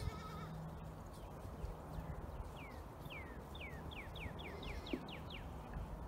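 Young goats bleating: one short bleat right at the start. In the second half comes a run of quick, high chirps, each falling in pitch, coming faster and faster.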